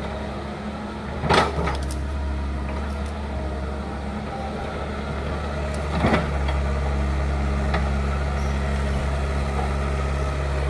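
Hydraulic excavator's diesel engine running steadily under heavy load as it works to uproot a bamboo root clump, hard enough that its rear lifts. Two short sharp cracks stand out, about a second and a half in and again about six seconds in.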